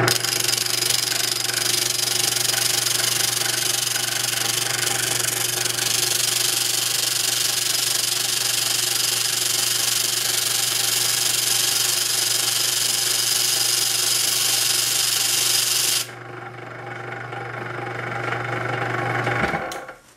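A corded power tool's motor running steadily, spinning a Zippo lighter's flint wheel against its flint with a harsh grinding hiss as the flint is worn away. About 16 seconds in the grinding hiss stops abruptly and the motor runs on more quietly, then cuts off shortly before the end.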